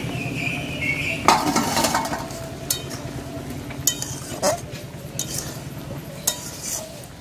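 Aluminium wok of cooking Malabar spinach being uncovered and stirred: a clank about a second in as the steel lid comes off, then a metal spatula scraping through the greens and clinking against the sides of the pan now and then.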